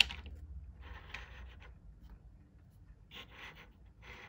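A Matchbox toy truck cab, metal cab on a plastic chassis, being handled and turned on a tabletop: a sharp click at the start, then a few brief scraping sounds.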